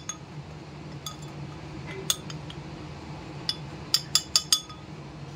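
Metal spoon clinking against the inside of a drinking glass while spreading chocolate spread on its walls: scattered ringing clinks, with a quick run of four near the end.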